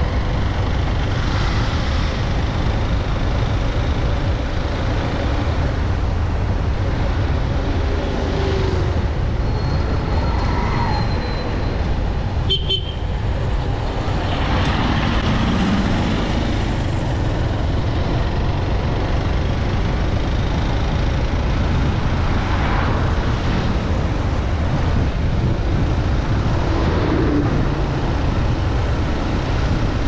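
Steady low rumble of road and wind noise from a moving vehicle. A vehicle horn toots briefly near the middle.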